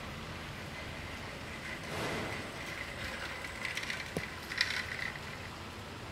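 Fountain water splashing steadily into a stone basin, with a brief swell about two seconds in and a spell of light mechanical ticking and clicking between about three and five seconds.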